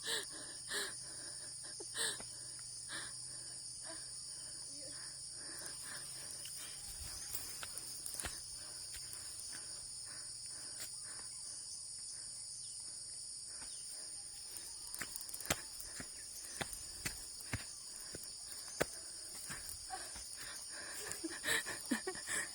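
A steady, high-pitched chorus of insects droning without a break, with scattered short clicks and knocks that come more often near the end.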